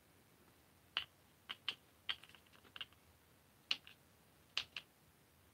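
Faint, sharp clicks and taps of small hard parts handled during hand assembly of a blaster: scattered single clicks with a quick cluster about two seconds in.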